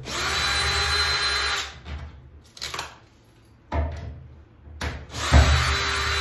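Cordless drill-driver run in two steady bursts with a whine, the first at the start and the second from about five seconds in, with a couple of knocks between them.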